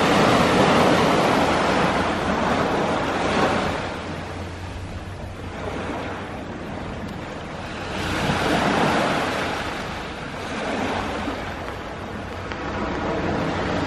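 Small sea waves breaking and washing up a sand beach. The rush of surf swells loudest at the start and again about eight to nine seconds in.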